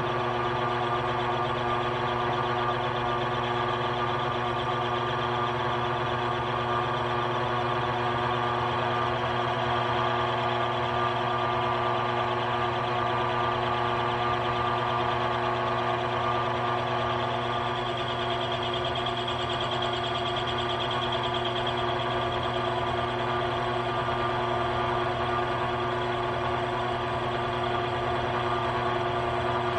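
Grizzly 7x14 mini metal lathe running steadily under power, its motor and gears giving an even hum with several fixed tones.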